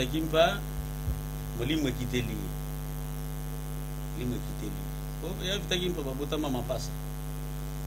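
Steady electrical mains hum, a constant low buzz with a ladder of overtones, running under the recording. Short stretches of a man's speech come in over it.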